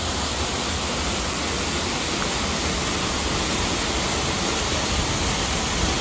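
Waterfall pouring in several streams over a rock ledge into a pool: a steady, unbroken rush of falling water.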